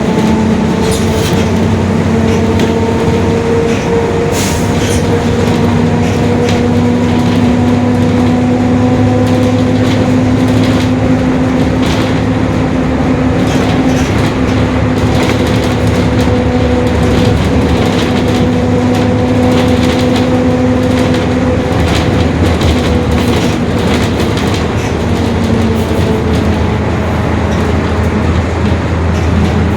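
Mercedes-Benz OF-1721 Bluetec 5 city bus under way: the diesel drivetrain runs with a steady whine from the differential, which fades about two-thirds of the way through and returns near the end. Scattered rattles and clicks run throughout.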